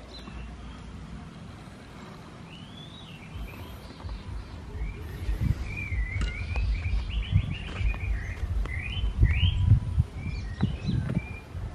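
Small birds chirping in short, curving calls throughout, with low thuds and rumbling that build from about four seconds in and are loudest near the end, from someone moving about in the loose garden soil.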